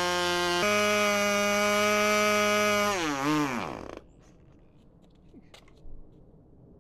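O.S. 15LA two-stroke glow engine running at a steady high pitch. About three seconds in, its note wavers and sinks, and it dies within a second as the fuel tank runs dry.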